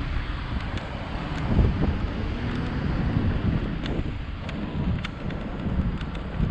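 Wind buffeting the microphone of a bicycle helmet camera while riding, a steady low rumble with a few faint light clicks.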